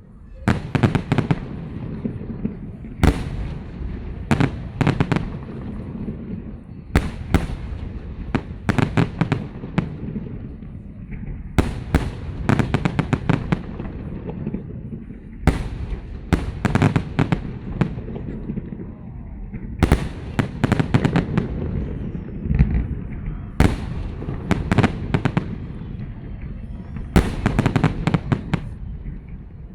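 Festive fireworks salute: volleys of shells bursting in rapid crackling clusters, about eight volleys roughly four seconds apart, with a low rumble carrying on between them.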